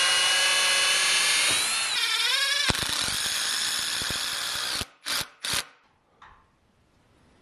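Cordless drill running steadily as it bores a pilot hole in a rough-sawn ash board, its whine wavering and dropping in pitch about two seconds in. Then an impact driver rattles a screw into the wood for about two seconds, followed by two short bursts of the driver before it falls near quiet.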